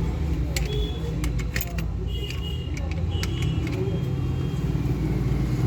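Scattered light clicks and clatter of small hard parts over a steady low hum, with a few short high-pitched squeaks.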